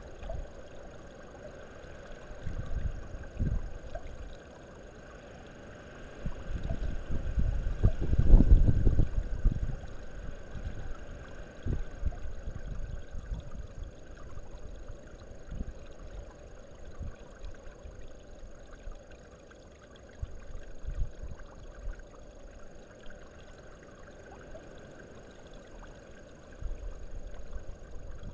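Wind buffeting the microphone in irregular low gusts, strongest about eight seconds in, over a steady faint background hiss.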